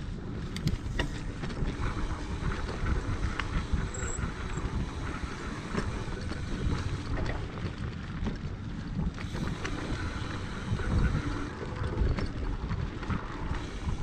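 A mountain bike riding fast down a dirt singletrack: wind buffeting the microphone and tyres rolling on packed dirt, with frequent small clatters and knocks from the bike over bumps.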